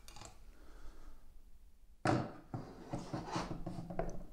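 Plastic knocks and rattles from handling an OASE Bitron C UV clarifier as its spiral cleaning wiper is taken off the quartz glass sleeve and set down. A sharp knock comes about two seconds in, followed by lighter clicks.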